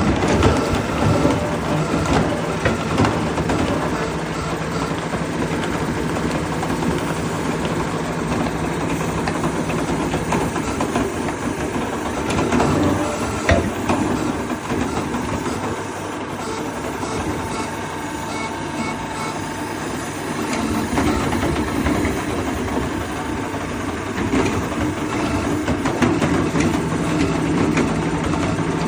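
Large engine-driven log-processing machine running steadily, with a low hum and scattered knocks throughout.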